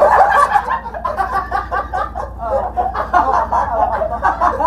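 Several men laughing and snickering together, in choppy bursts.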